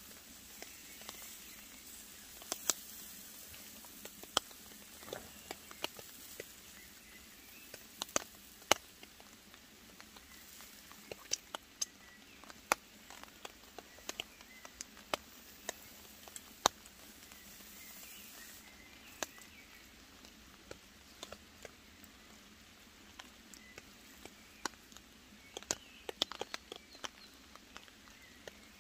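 Rain dripping in woodland: scattered, irregular drops tapping on leaves and fabric, some close and sharp, over a faint steady hiss.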